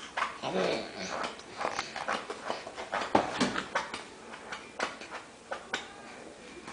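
A 7½-month-old baby making short vocal noises while being spoon-fed, mixed with many small clicks and smacks.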